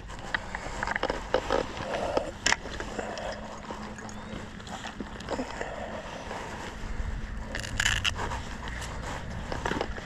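Scattered clicks and scrapes of fishing gear being handled while a swallowed hook is worked out of a small fish. Low wind rumble on the microphone from about two-thirds of the way in.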